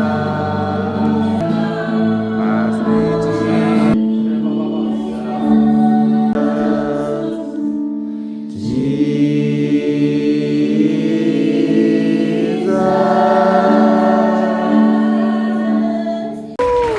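Voices singing a worship song together in held, sustained chords. The sound changes abruptly a few times.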